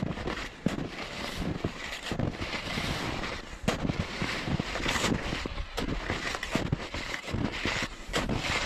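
Wide hunting skis crunching and swishing over packed snow with each stride, in an uneven rhythm, with wind buffeting the microphone.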